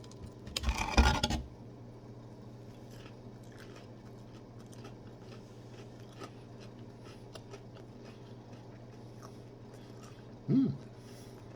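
A first bite into a corn dog coated in crunchy frosted-flake cereal gives a loud crunch about a second in. A stretch of quieter crackly chewing follows, with a short hum of approval near the end.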